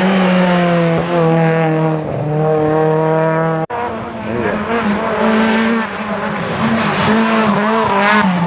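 Rally car engines running at high revs, the steady engine note breaking off briefly several times as gears change. An abrupt cut partway through, then another rally car's engine revving hard as it passes close, its note climbing near the end.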